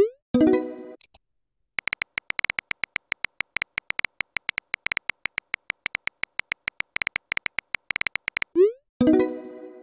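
Text-message app sound effects: a quick rising swoosh and a ringing notification chime as a message arrives, then several seconds of rapid, irregular phone-keyboard typing clicks, then another swoosh and chime near the end.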